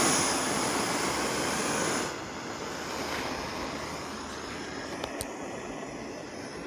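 Handheld gas torch burning with a steady hiss of flame, louder for the first two seconds, then quieter and steady.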